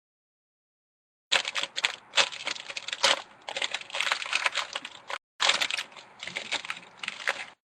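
A football trading-card pack being torn open and its cards handled: dense, irregular crinkling and clicking that starts about a second in, breaks off briefly near the end and then resumes.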